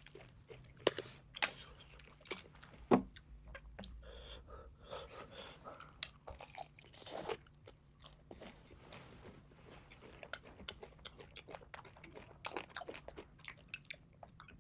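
Close-up eating sounds: a person taking big crunchy bites and chewing, with irregular sharp crunches and wet mouth noises.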